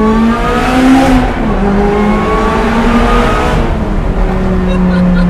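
Supercharged Lotus Exige engine, breathing through a DMC aftermarket exhaust header, pulling hard: the note climbs, breaks about a second and a half in, then climbs again in steps. It settles to a steady cruise near the end. Heard from inside the cabin.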